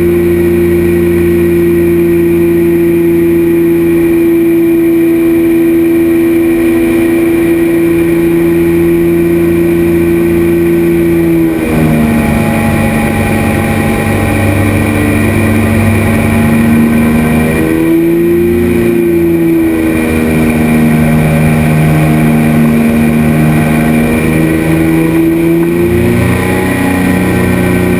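Engine and pusher propeller of a Polaris Motor flying inflatable boat running steadily in flight. The engine note drops about twelve seconds in, swells briefly around eighteen seconds, and rises again near the end.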